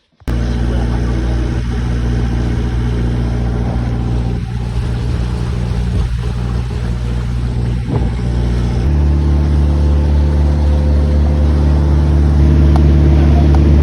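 Boat engine running steadily under way, its note shifting and growing louder about nine seconds in as it is throttled up.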